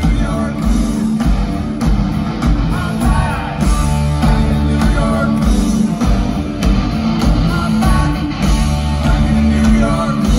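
Live rock band playing electric guitars, bass and drums, with a male lead vocal, heard through the PA from among the audience.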